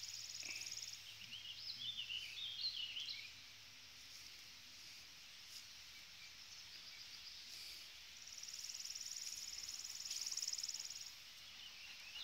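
Outdoor summer ambience: a high, rapid insect trill in the first second and again from about eight to eleven seconds in, with a songbird chirping through the first three seconds and again near the end.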